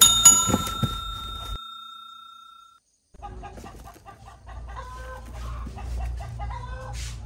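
A sharp, loud ding at the start that rings on for a couple of seconds. From about three seconds in, chickens cluck, a run of short calls over a low hum.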